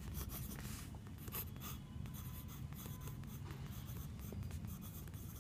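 Pencil writing on paper: the graphite point scratching in short, irregular strokes as letters are written.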